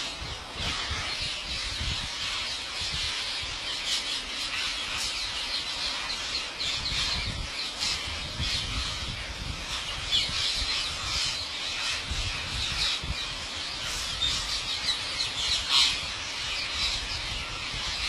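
A large flock of rose-ringed parakeets screeching and chattering: a dense, unbroken din of many shrill overlapping calls, with a low rumble underneath.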